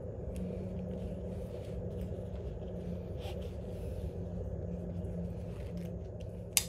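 A steady low rumble with a constant hum, a few faint ticks, and one sharp click near the end.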